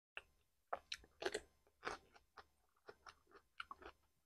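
Crunchy chewing of raw cucumber: a run of irregular crisp crunches, the loudest a little over a second in and again about two seconds in.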